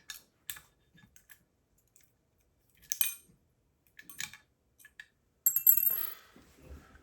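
Small metal clicks and taps of hand tools and parts on an opened hard drive being taken apart. About five and a half seconds in comes a louder metal clatter with a high ringing tail.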